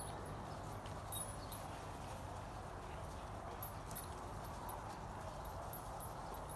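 Irish setter puppies scuffling and romping on grass: scattered soft ticks and small knocks over a steady background hum.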